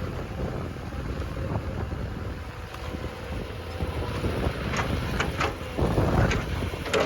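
Wind buffeting the microphone over a low, steady rumble, with a few sharp clicks about five seconds in.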